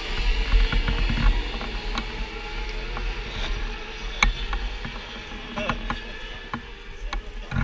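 Racing engines running on the circuit in the distance, with wind buffeting the microphone in an irregular low rumble and a few sharp clicks.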